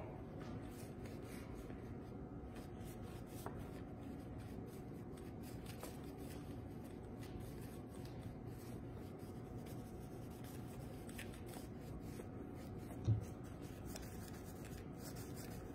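Faint rubbing of a nearly dry paintbrush dragged over canvas, applying acrylic paint by dry brushing, with light scattered ticks. One short soft knock about thirteen seconds in.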